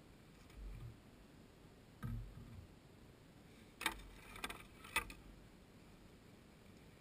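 Camp gear being handled by hand: a couple of dull low thumps, then three sharp clacks of hard objects knocking together about four to five seconds in.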